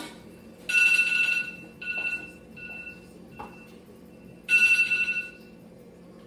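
An electronic ringing tone sounding in fluttering bursts. A long loud ring comes about a second in, then a few shorter, fainter rings, then another loud ring about five seconds in.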